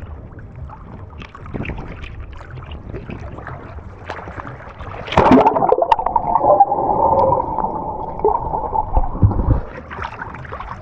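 Seawater sloshing against an action camera at the surface; about five seconds in the camera goes under and the sound turns muffled, with a wavering underwater hum, before it breaks the surface again with a splash near the end.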